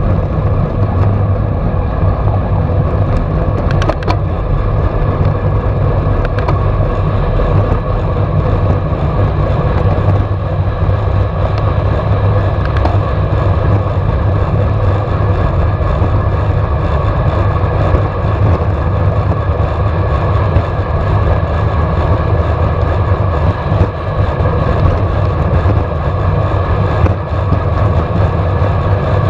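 Wind rushing over the microphone and bicycle tyres rolling on asphalt during a fast downhill descent at about 30 to 50 mph: a loud, steady rumble with a hiss on top.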